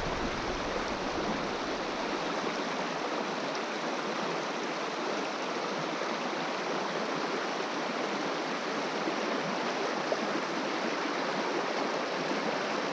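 Swift river water rushing steadily over rocks, a constant, even sound.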